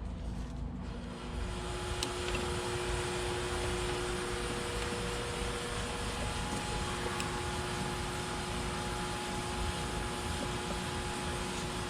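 A machine starts running about a second in and keeps going steadily: an even rushing noise with a faint steady whine.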